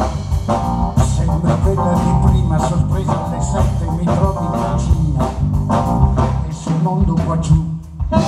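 Live band music with drum kit, bass and electric guitar playing a steady beat, with a brief drop in level near the end.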